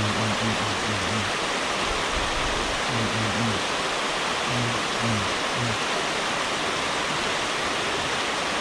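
River water rushing steadily over a concrete weir. Short runs of a low, evenly repeated note sound beneath it near the start, about three seconds in and about five seconds in.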